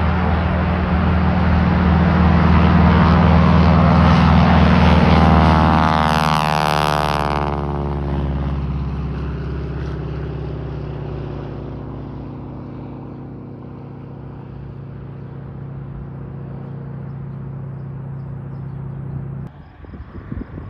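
A Harvard trainer's Pratt & Whitney R-1340 Wasp radial engine at takeoff power. It grows louder as the aircraft passes, its tone sweeps down as it goes by, and then it fades steadily as the plane climbs away. The sound drops off suddenly near the end.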